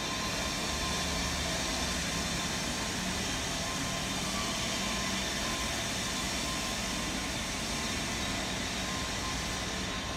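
Steady background noise with a faint hum and a thin steady tone, unchanging throughout, with no distinct events.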